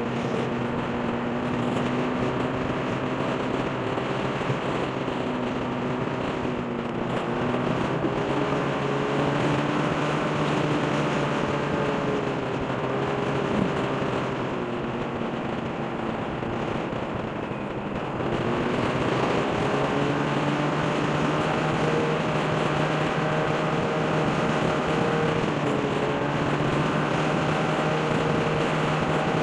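Motorcycle engine running under way, its pitch shifting up and down a few times with throttle and gear changes, the largest change about eighteen seconds in, over a steady rush of wind and road noise.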